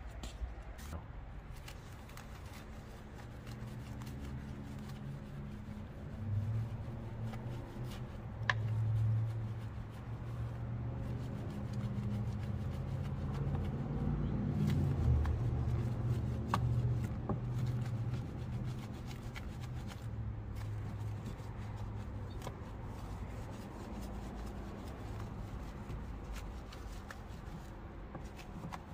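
A bristle wheel brush scrubbing a wet, soapy car wheel, a scratchy rustle of bristles against the rim and spokes with occasional small clicks, over a low steady hum.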